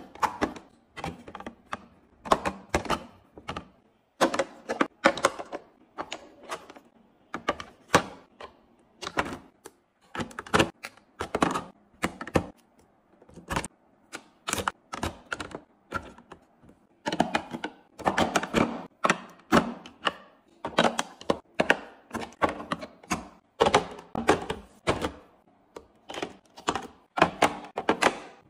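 Plastic and glass toiletry and makeup containers being set down and knocked into clear acrylic drawer organizers: an irregular run of clicks and clunks, several a second.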